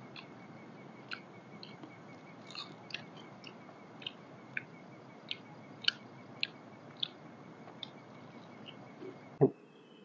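Wood cooking fire crackling: sharp, irregular pops over a steady hiss. A single dull thump about nine and a half seconds in is the loudest sound.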